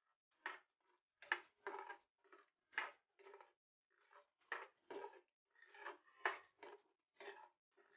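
Spatula scraping and knocking against a metal kadhai while stirring a thick gravy with green peas. The short, irregular scrapes come about two a second.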